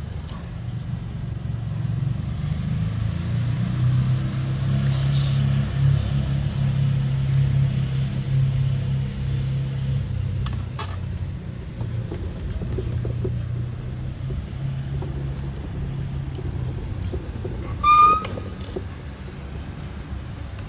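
A steady low motor rumble, louder in the middle, with one short high-pitched call near the end.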